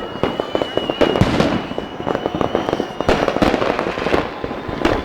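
Many fireworks and firecrackers going off at once: a dense, unbroken run of bangs and cracks, with a steady high whistle through the first three seconds.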